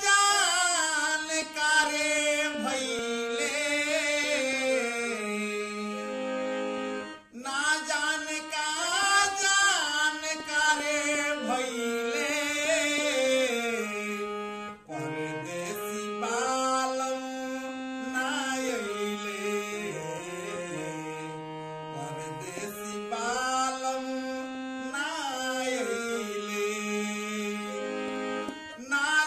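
Hand-pumped harmonium playing a melody in held notes that step up and down, with a man singing over parts of it. The music breaks off briefly twice.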